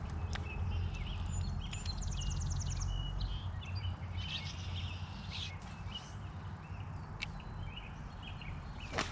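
Small birds chirping, with one fast trill about two seconds in, over a steady low rumble. A few sharp clicks are heard, the loudest near the end.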